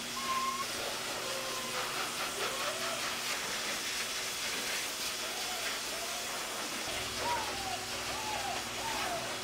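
Hose-fed pet grooming dryer blowing air in a steady hiss, while a Boerboel puppy whines in short rising and falling whimpers now and then, more often near the end.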